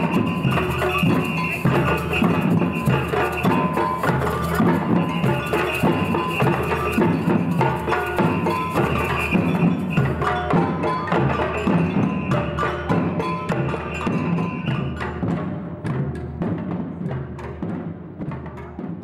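Amateur batucada percussion group playing a steady samba rhythm on drums and small hand percussion, with a high ringing tone that comes and goes over the beat. The playing dies away over the last few seconds.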